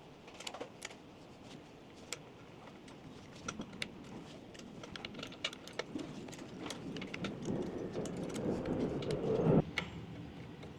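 Irregular small clicks and taps of hands handling scooter parts and wiring, with a rustling, scraping noise that builds over a few seconds and stops abruptly near the end.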